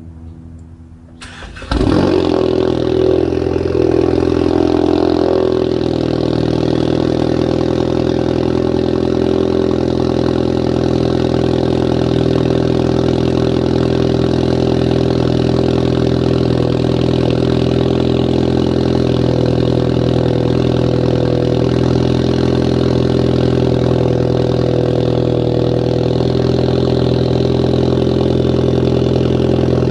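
Ford Focus ST's turbocharged 2.0-litre four-cylinder engine on a cold start, heard from behind at the tailpipe. It cranks briefly and catches just under two seconds in, runs a little higher for a few seconds, then settles into a steady fast cold idle.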